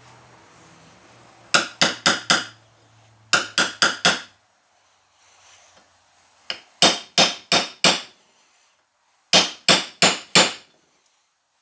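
Hammer tapping a socket down over a valve stem seal on an aluminum cylinder head, seating the tight-fitting seal all the way down. Four bursts of about four quick, sharp metallic taps each, with one lighter tap before the third burst.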